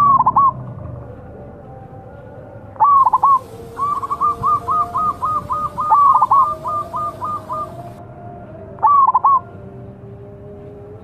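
Zebra dove (perkutut) cooing. It gives short bursts of about three quick notes at the start, about three seconds in and near the end. Between them comes a fast run of a dozen or more short notes, about four a second.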